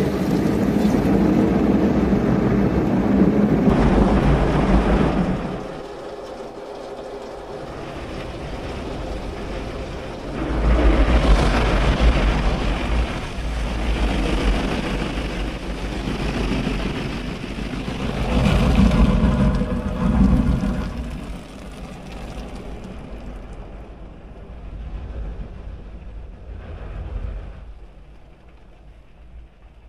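Automatic rollover car wash heard from inside the car: water spray and the wash machinery passing over the bodywork in loud swelling waves, growing quieter over the last several seconds.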